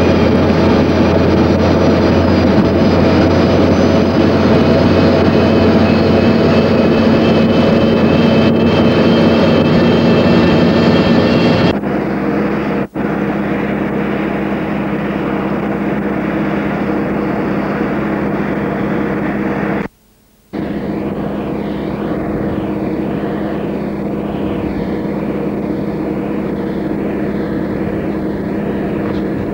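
Diesel truck engine droning steadily at road speed, heard from inside a moving cab. About twelve seconds in the sound changes abruptly to a different steady drone with a humming tone, and it drops out for a moment about twenty seconds in.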